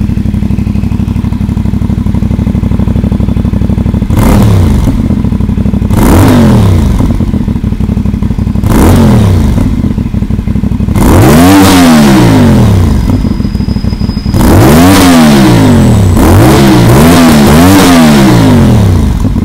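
Stock FB Mondial Piega 452 motorcycle engine with dual exhaust idling, then revved in a series of throttle blips, each rising and falling in pitch; the later revs are longer and come back to back near the end.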